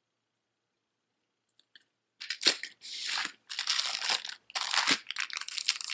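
Plastic bag crinkling and rustling as it is handled, in several bouts starting about two seconds in.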